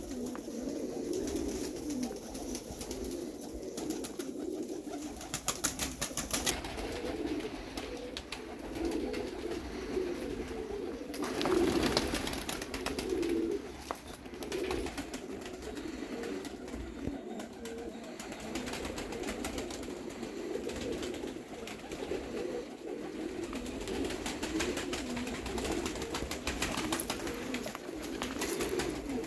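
Baku wide-tailed pigeons cooing continuously in low, overlapping coos, with a brief louder burst of noise about twelve seconds in.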